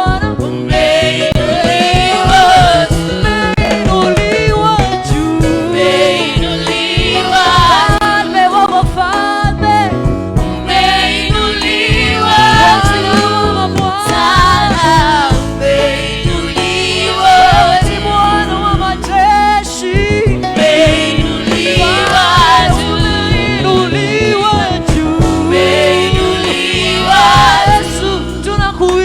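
Gospel worship music: voices singing a melody over instrumental accompaniment.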